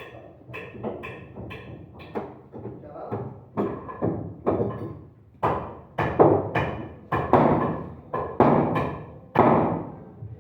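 A steady series of sharp knocks, about two a second, each with a short ringing decay; they grow louder and fuller over the second half.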